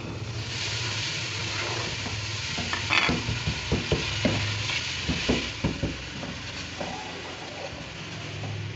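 Water hitting a hot non-stick karahi of fried onion-tomato masala sets it sizzling about half a second in. From about three seconds on, a wooden spoon stirs the masala, scraping and knocking against the pan.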